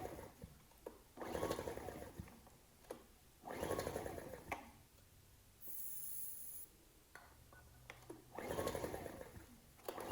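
The Ryobi RIG1000 inverter generator's small engine is cranked by repeated pulls on its recoil starter, about four pulls of roughly a second each. The engine turns over with good compression but does not fire. A short hiss comes about six seconds in.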